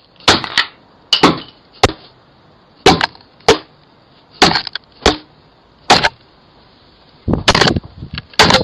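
A dozen or so sharp, hard knocks at irregular intervals, bunching together near the end, picked up close by the Ring doorbell camera's own microphone as the neighbour strikes the camera.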